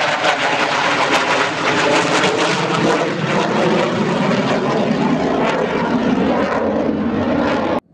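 Twin-engine roar of a Blue Angels F/A-18 Super Hornet jet flying past, loud and steady with a ragged crackle. It cuts off suddenly at the very end.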